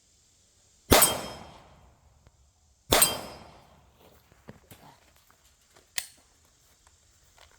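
Two pistol shots about two seconds apart, each with a short ringing, echoing tail, followed about three seconds later by a fainter sharp crack.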